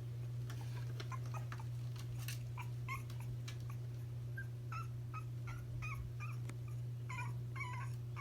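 A puppy whimpering in many short, high squeaks, mixed with short clicks, over a steady low hum.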